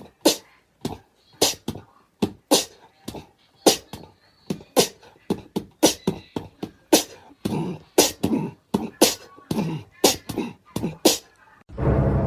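A quick, irregular run of short, sharp percussive clicks or knocks, about two to three a second and coming faster past the middle. Steady music comes in just before the end.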